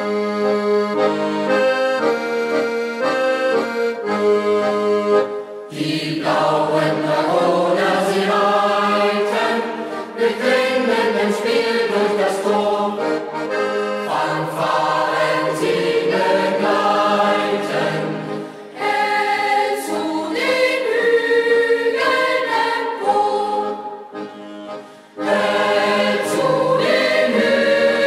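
Accordion music starting up: a steady, sparse opening for about six seconds, then a fuller, denser passage that briefly thins twice before swelling again near the end.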